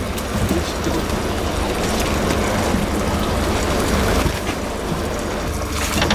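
Boat's outboard motor running at a steady low hum, with a hiss over it.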